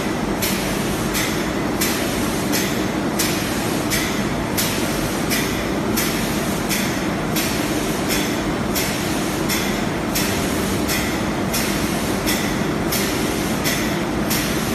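Computer-controlled filament winding machine running: a steady mechanical hum with a regular hissing pulse about every 0.7 seconds.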